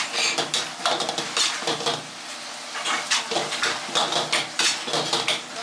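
Metal wok ladle clanking and scraping against a wok while fried rice is stirred and tossed over the flame, in uneven strokes about two or three a second, over a steady hiss.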